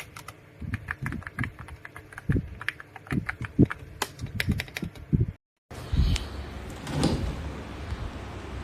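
Typing on a Feker IK85 mechanical keyboard with PBT keycaps: quick, uneven key clacks. The typing stops abruptly about five seconds in, followed by a steady rushing noise with a couple of dull thumps.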